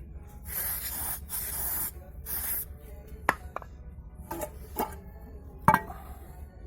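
Metal-on-metal work on a car's wheel hub and knuckle: three short rasping strokes, then several sharp knocks on metal with brief ringing, the last the loudest.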